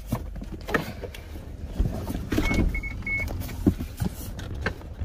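Rubber floor mat being rolled back and handled over the carpeted stow-and-go floor of a minivan: scattered thumps and scuffs. Three short high beeps sound about halfway through.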